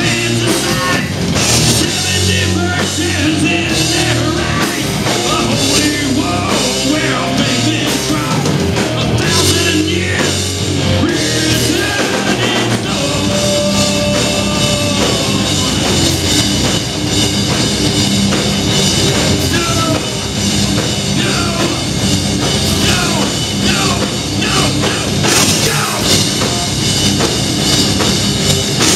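Heavy metal band playing live: distorted electric guitar, bass guitar and drum kit at full volume, with a singer's vocals over them.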